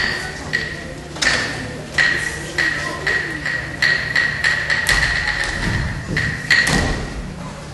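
Lion dance percussion: an irregular run of sharp strikes, about one or two a second, each leaving a high ringing tone.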